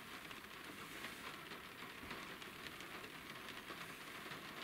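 Rain pattering on a vehicle's roof, heard from inside the cab: a faint, steady hiss with scattered small ticks.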